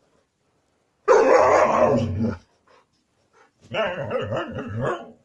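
A dog vocalizing in two drawn-out calls of just over a second each, the second one with a pulsing quality.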